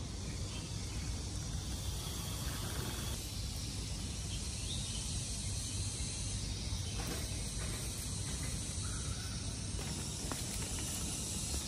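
Steady, high-pitched outdoor insect chorus, with a low rumble underneath.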